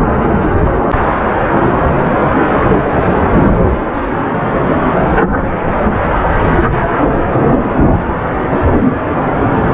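Loud, steady rush of whitewater rapids in a rain-swollen mountain stream, heard close up from the kayak, with two brief knocks, about a second and five seconds in.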